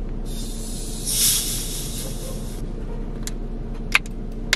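Sprite bottle being opened: carbonated soda hissing out past the loosened cap for about two seconds, swelling then cutting off, followed by a few short sharp clicks near the end.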